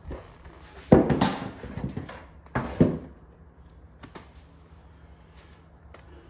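Two short bursts of clattering and scraping, about a second in and again near three seconds, then a few faint clicks: parts and tools being handled during disassembly of a car's front end.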